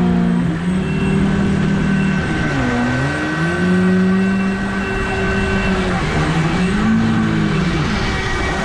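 Radio-controlled model boat motor running steadily. Its pitch drops sharply and climbs back about a third of the way in, then rises and falls again near the end as the throttle is eased and opened.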